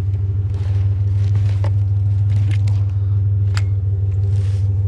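Idling vehicle engine with a steady low drone, and a few light metallic knocks and clinks as metal bed rails are handled.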